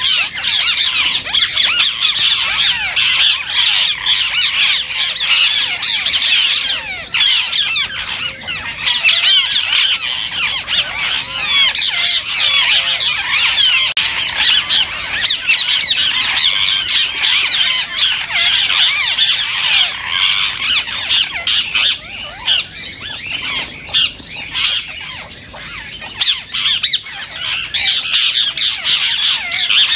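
A large flock of Indian ringneck parakeets screeching together in a dense, unbroken din of shrill calls. The din thins a little for a few seconds past the middle, then swells again near the end.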